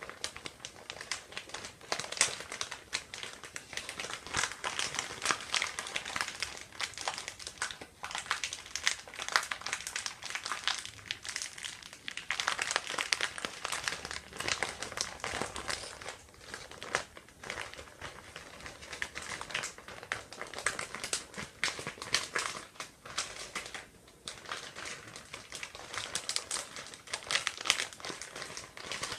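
Plastic being crinkled and crumpled close to the microphone: a continuous run of dense crackling with many sharp clicks.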